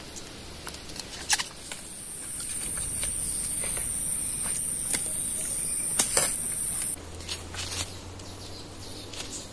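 A steady, high-pitched insect buzz. It starts about two seconds in and cuts off suddenly near seven seconds, over faint scattered clicks and rustles.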